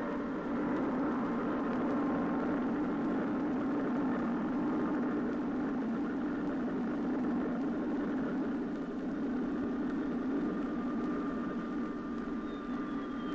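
Jet engines of a Tu-144 supersonic airliner running steadily, a deep rushing drone with a thin whine that falls in pitch near the end.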